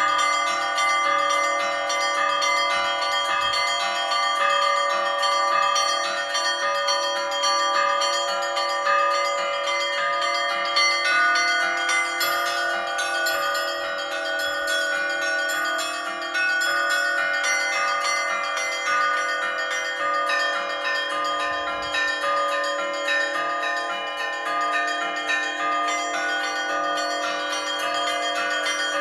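Church bells rung together in an Orthodox-style peal: small bells struck in quick, busy patterns over the steady ringing of larger bells. A further low bell note joins about two-thirds of the way through.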